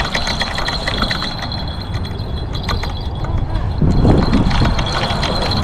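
Fishing reel being cranked while fighting a hooked fish: rapid fine ticking over a steady low rumble, with a louder low rush about four seconds in.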